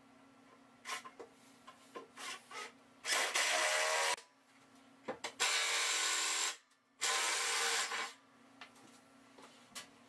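Cordless power driver driving screws into wooden studs: three runs of about a second each, the motor whining as each screw bites into the wood, after a few light clicks of handling.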